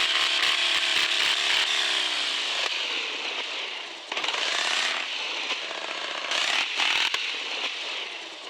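Radio-controlled 4x4 crawler's small electric motor and gear train whining as it drives, the pitch sliding down over the first few seconds. There are a few clicks near the start, and the motor eases off about four seconds in, then runs again.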